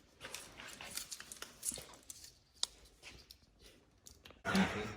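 Close handling sounds: rustling and small tearing noises with a few light clicks, as a sticky taillight seal strip is pulled and torn by hand.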